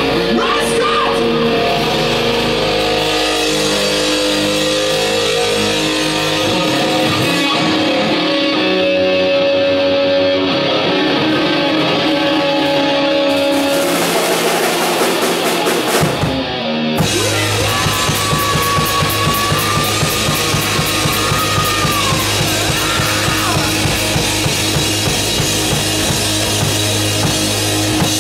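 Live hard rock band playing loud on electric guitars, bass and drum kit. The first half rings out on held chords with cymbal wash; after a short break about sixteen seconds in, the band starts a fast, driving riff over steady drumming.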